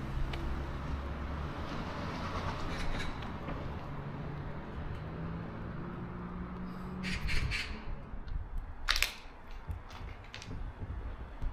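Outdoor neighbourhood street ambience: a steady low engine hum for most of the stretch, then a quick cluster of short harsh sounds about seven seconds in and a louder single one about two seconds later, like a bird's harsh calls.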